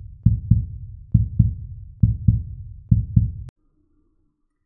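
Heartbeat-style sound effect: deep double thumps in pairs, one pair about every 0.9 seconds, four pairs in all. It cuts off suddenly with a click about three and a half seconds in.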